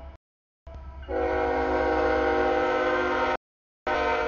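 CSX freight locomotive's air horn blowing chords for the grade crossing: one blast cuts off right at the start, then a long blast of about two and a half seconds, and another blast begins near the end, over a low diesel rumble.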